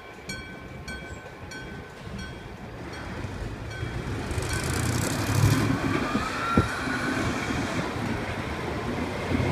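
Electric gong bell of a railway level-crossing signal striking about two to three times a second, each strike ringing on. The strikes grow fainter and stop about three and a half seconds in, and a growing rumble of passing vehicles follows, with a sharp thump about two-thirds of the way through.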